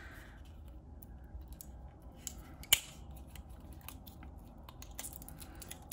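Hands handling rolls of washi tape and a paper card: soft rustling with a few light clicks, one sharper click near the middle.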